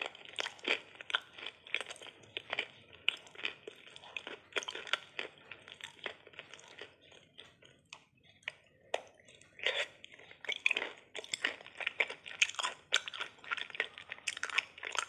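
Close-up biting and chewing of crunchy dry-clay balls coated in chocolate spread, with quick runs of sharp crunches. The crunching thins out for a few seconds in the middle, then comes back in fresh bites.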